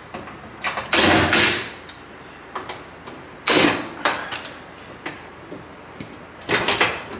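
Cordless drill-driver whirring in two short runs as it backs the screws out of an electrical panel cover, followed near the end by a quick clatter of the metal cover being handled as it comes off.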